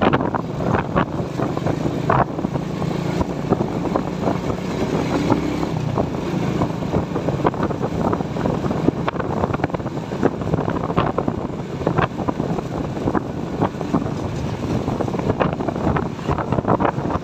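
Motorcycle riding along at steady speed: the engine runs steadily under the noise of wind buffeting the microphone, with frequent short gusts.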